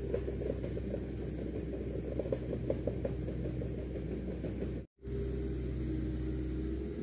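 An engine running steadily at idle, a low hum with a few light irregular clicks over the first three seconds. The sound cuts out briefly about five seconds in, then the same hum resumes.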